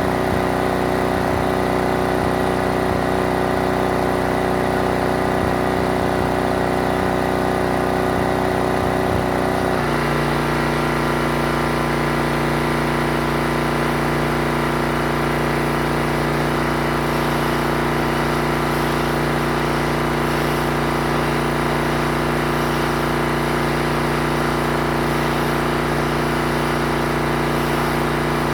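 Pressure washer engine running steadily under load; about ten seconds in its note changes abruptly and then holds steady.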